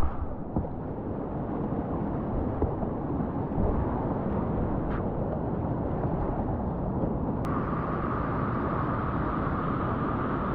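Steady rush and rumble of river water, with no distinct events. About two-thirds of the way in it changes abruptly and becomes brighter and hissier.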